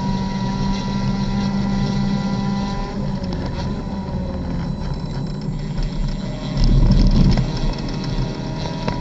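Race car's engine heard from inside the cockpit, running hard at high speed over wind noise. About three seconds in the steady engine note drops away as the car slows for a corner, and a loud low rumble comes about seven seconds in.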